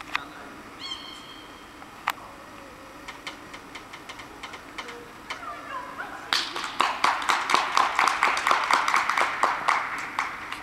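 Spectators applauding, a dense patter of hand claps that starts about six seconds in and dies away near the end, as the dog reaches its handler.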